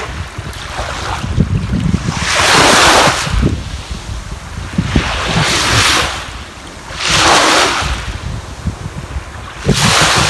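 Sea waves washing onto the shore, one surge of surf after another every two to three seconds, with wind buffeting the microphone as a low rumble underneath.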